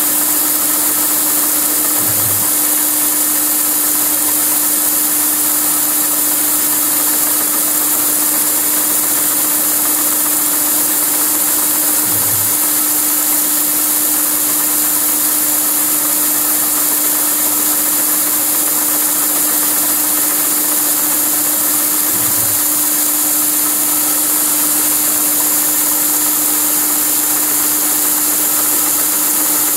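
MAHO MH700C CNC milling machine running steadily while milling a Hirth coupling, with a constant hum and hiss. Three times, about ten seconds apart, a brief low thump breaks into the hum.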